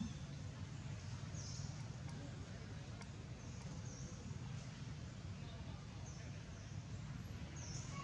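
Outdoor forest ambience: a short, high, falling chirp repeats every second or two over a steady low hum, with a few faint clicks.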